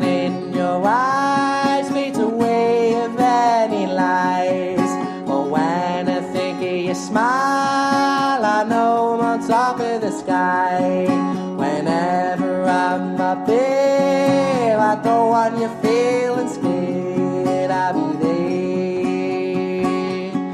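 Music: a song built on acoustic guitar, with a melody of long held notes that slide in pitch over it.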